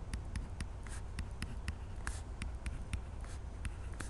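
A stylus writing numbers on a tablet: a run of light taps, about three a second, with a few short scratchy strokes, over a low steady hum.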